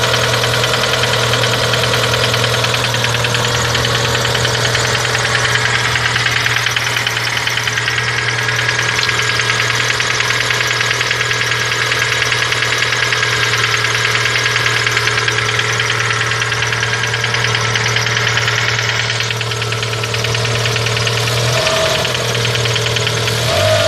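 Great Wall Hover H2's 2.4-litre petrol four-cylinder (Mitsubishi 4G64) idling steadily with a fast, even ticking over the running note: the extraneous engine noise whose cause the owner cannot tell. Near the end the engine note shifts briefly twice.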